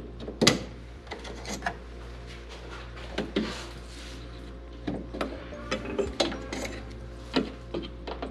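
Plastic push-type pop clips being prised loose with a plastic trim tool: scattered sharp clicks and light knocks of plastic on plastic, the loudest about half a second in.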